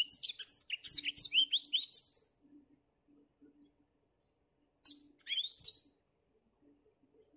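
Caged black-throated canary singing: a rapid burst of high, sliding twittering notes for about two seconds, then, after a pause, a shorter phrase about five seconds in.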